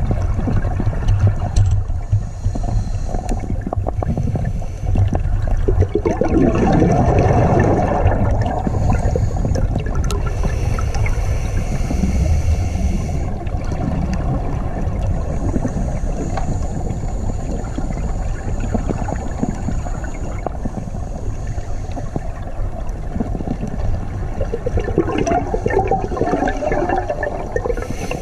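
Underwater sound on a scuba dive: a steady low rush of water and current against the camera housing, with two longer bubbling swells from a diver's exhaled breath, about six seconds in and again near the end.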